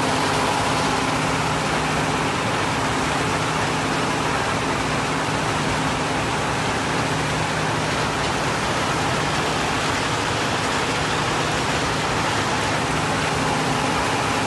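Stone-crushing plant running: a steady, dense noise of machinery and falling stone, with a steady hum underneath.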